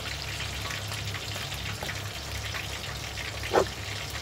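Shrimp tempura frying in hot oil in a small tempura pot: a steady sizzle and crackle with a low hum underneath. A short rising sound stands out near the end.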